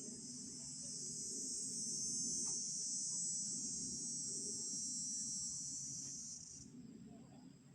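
An insect's loud, steady, high-pitched buzzing song that swells over the first couple of seconds, holds, then stops abruptly about six and a half seconds in.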